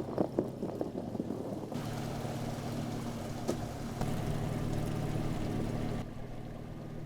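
A few quick knocks, then an engine running steadily under a hiss of water or wind. The sound changes abruptly about six seconds in to a quieter, different steady engine hum.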